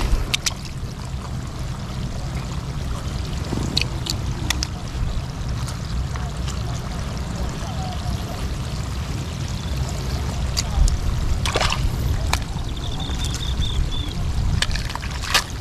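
Wind rumbling on the microphone over trickling, sloshing seawater, with scattered sharp clicks.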